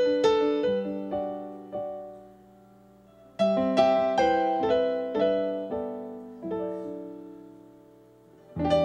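Yamaha Motif keyboard playing a piano voice solo: slow chords, each phrase left to ring and fade almost away before the next, with a fuller, louder chord entering near the end.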